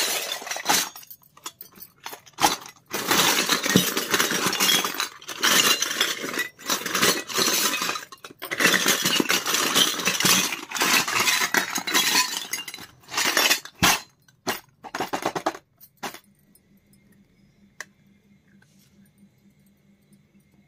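Miniature steel toy pots, pans and utensils, mixed with small plastic pieces, clinking and rattling against each other as hands rummage through a plastic crate of them. The clatter stops about three quarters of the way through and it goes nearly quiet.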